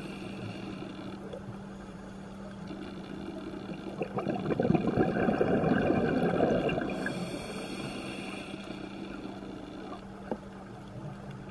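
Scuba diver's exhaled bubbles from the regulator, heard underwater: one bubbling burst of about two and a half seconds near the middle, over a steady low hum.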